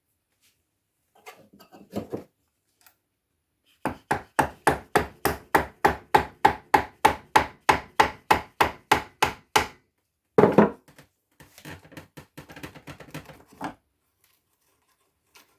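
Mallet striking a wood chisel to chop out the waste between saw cuts in a wooden slot: a few light taps, then a steady run of sharp blows at about four a second for several seconds, one heavier blow, and a patch of lighter, ragged chopping.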